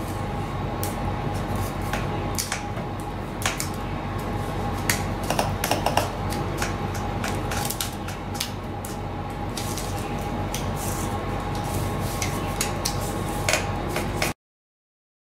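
Irregular light clicks and snaps of corrugated plastic (Coroplast) parts being pressed out of their cut sheet, over a steady background hum. The sound cuts off abruptly near the end.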